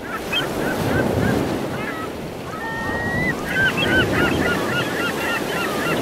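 Surf washing in, swelling and easing, with a flock of birds giving many short rising-and-falling calls over it and one longer held call partway through.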